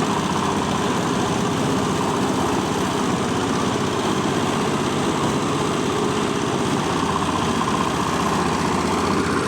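Coconut husk peeling machine running steadily, its motor and drive making an even, unbroken mechanical drone.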